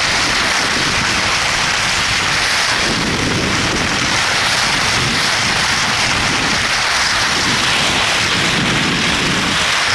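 Steady rushing noise of wind buffeting the microphone and skis hissing over the snow while being towed at speed by two dogs.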